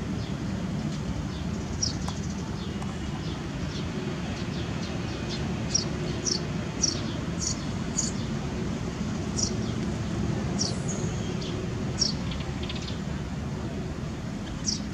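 A small bird chirping over and over: short, high chirps that fall in pitch, spaced irregularly about half a second to a second apart, thickest in the middle stretch. Under them runs a steady low rumble.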